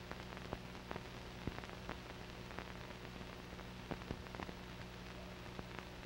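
Surface noise of an old film soundtrack: steady hiss full of scattered clicks and pops, with a low steady hum beneath.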